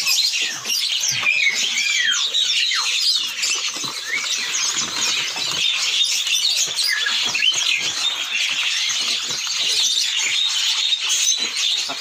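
Many caged songbirds chirping and calling at once: a dense, continuous chorus of quick high chirps and short whistled glides.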